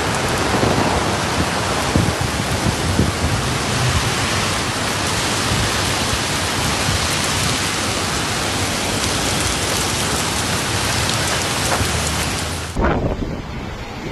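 Heavy typhoon rain pouring down in a steady, dense hiss. Near the end it cuts off suddenly and gusting wind buffets the microphone.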